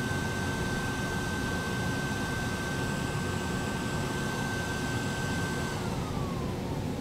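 Steady rush of rack-equipment cooling fans in a transmitter room, with a high whine that holds one pitch and then slides down in pitch about six seconds in, as equipment winds down while being shut off.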